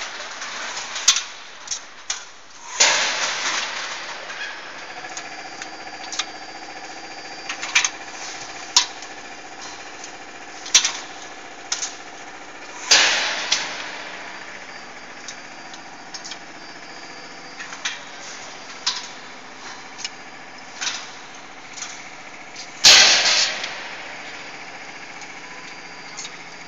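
Automatic cold-forging hydraulic press line running: a steady machine hum with held tones, many sharp metallic clicks and clanks from the transfer mechanism, and a loud rushing hiss three times, about ten seconds apart, as the line cycles.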